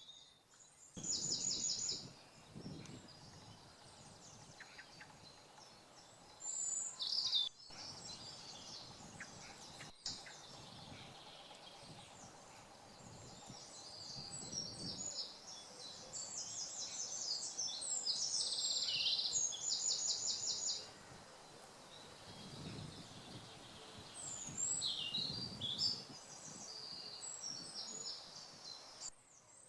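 Several woodland songbirds singing and calling in spring, in short high-pitched phrases and rapid trills that come again and again, loudest about a second in and again from about 16 to 21 seconds.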